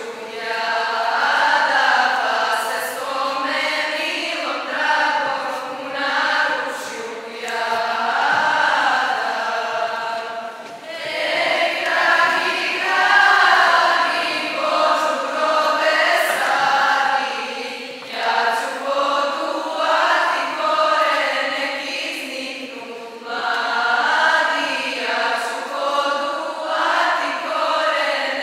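A choir singing a religious song, in long sung phrases with short breaks between them.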